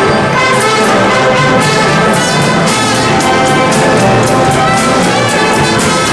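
Military brass and drum band playing: brass sustaining full chords over repeated drum strokes.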